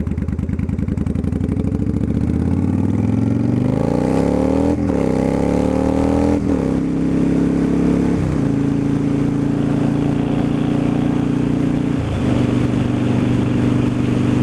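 Yamaha V-twin cruiser motorcycle engine accelerating away through the gears: the pitch climbs, drops at upshifts about five, six and a half and eight seconds in, then holds steady at cruising speed, with a brief dip in the throttle near the end.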